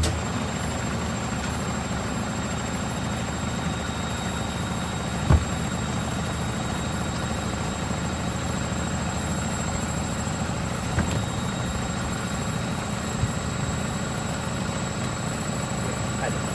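Elin washing machine running with a steady hum and a faint high whine. A sharp thump at the very start and another about five seconds in, with two lighter knocks later.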